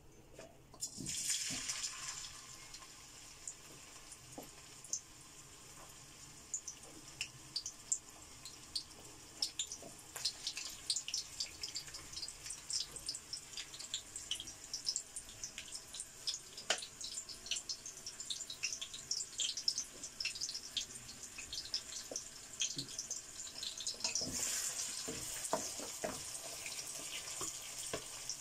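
Sliced onions sizzling in hot oil in a non-stick wok: a hiss that starts suddenly about a second in as they go into the oil, with many small crackles and pops. The sizzle swells again near the end as the onions are stirred with a wooden spatula.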